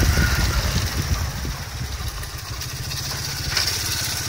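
Honda Astrea Prima motorcycle's small four-stroke single-cylinder engine running as the bike slows, then settling into a steady idle with an even low putter from about a second and a half in. The engine has Fanta in place of engine oil and runs rougher than usual.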